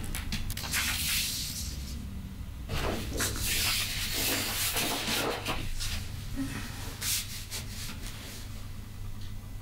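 Large sheets of drawing paper sliding and rustling against each other as they are leafed through by hand, in two long swishes, the second longer, then a few light taps.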